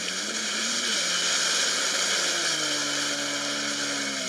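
Jet ski engine running over a loud rush of spray, played in reverse; its pitch wavers, then steps up and holds steady from about halfway through.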